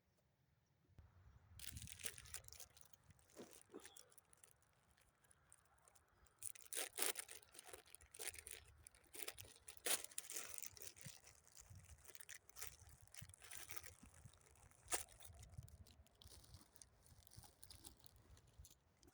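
Plastic crinkling and rustling close to the microphone, with irregular crackles and clicks.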